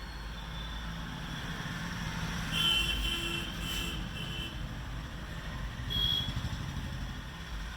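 Low steady rumble of motor-vehicle traffic, with brief high-pitched tones about two and a half seconds in and again near six seconds.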